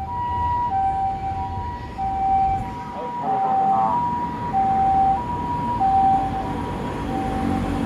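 Ambulance siren sounding a steady alternating high-low two-tone call, each note about two-thirds of a second long, over the low rumble of city traffic.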